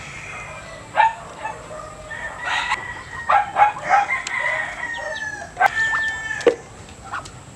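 Rooster crowing, one long drawn-out call through the middle, with chickens clucking around it.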